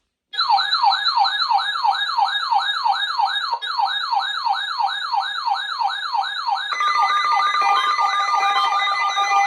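Electronic siren-style wail, a tone sweeping up and down about twice a second, with a brief break about three and a half seconds in. About seven seconds in, several steady tones join the wail.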